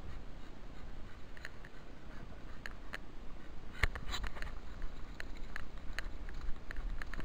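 Footsteps of a person walking up a rough grassy slope: soft, irregular crunches about two a second, under a low rumble of wind and handling on a body-worn camera.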